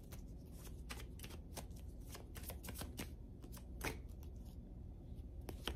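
A deck of tarot cards being shuffled by hand: faint, quick, irregular flicks and riffles of cards slipping past one another, several a second, with a slightly sharper card snap near the end.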